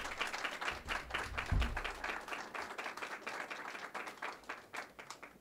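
A small audience applauding, the clapping thinning out and dying away near the end, with one low thump about one and a half seconds in.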